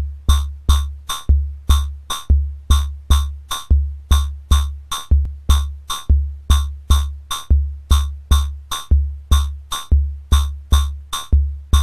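Homemade CMOS logic-chip drum synthesizer playing a syncopated beat: its shift register, fed by separate data and clock oscillators, sets the pattern. Each hit is a low kick-drum-like thump with a sharp click on top, about two to three hits a second, some hits softer than others.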